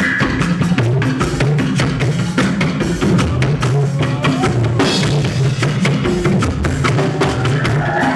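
Music: a drum kit playing a busy, steady beat over a bass line.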